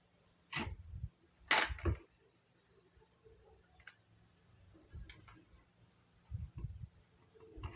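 Plastic clicks and knocks as an electric fan's parts are fitted back together, the loudest about one and a half seconds in. A cricket chirps steadily with a rapid, high pulsing underneath.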